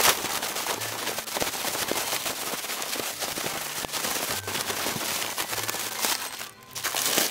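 Doubled plastic bag crinkling and rustling in rapid crackles as it is shaken hard to whip instant coffee, sugar and water into dalgona foam. The crackling briefly drops off about six and a half seconds in, then resumes.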